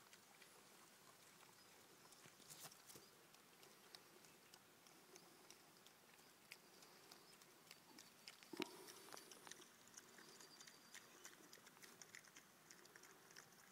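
Piglets eating: faint chewing and many small clicks and ticks at their feed, with one louder knock a little past halfway.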